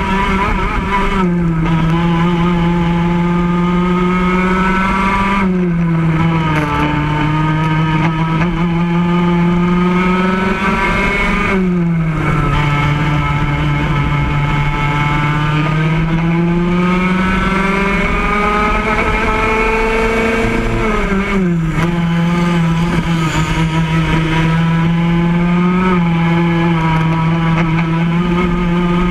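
Racing kart engine heard close up from onboard, running at high revs. Its pitch drops sharply four times as the kart slows for corners, then climbs steadily again as it accelerates out.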